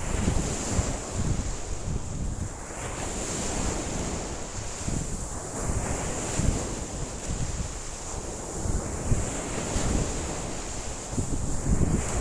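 Rough lake waves washing in every few seconds, with strong wind gusting over the microphone in a low, uneven rumble.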